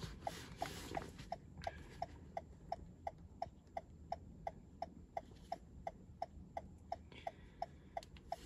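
Toyota Camry's hazard-warning flasher ticking steadily, about three ticks a second, with the hazard lights switched on.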